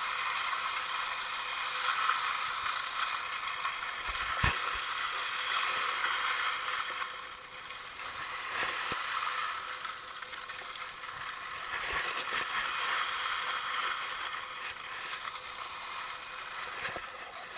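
A skier sliding down a groomed snow run, the snow scraping and hissing under the skis in swells that rise and fall. There are a couple of sharp knocks, one a few seconds in.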